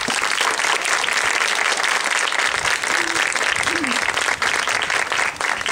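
Audience applauding: many people clapping at once, loud and steady.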